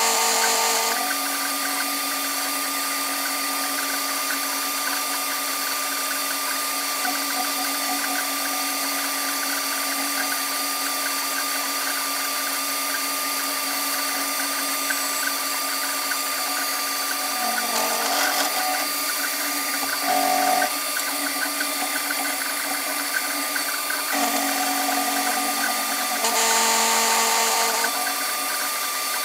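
Sharp vertical milling machine's end mill cutting a steel clamp blank: a steady spindle whine with the hiss of the cut. The cut grows louder for about a second at the start and again for a few seconds near the end.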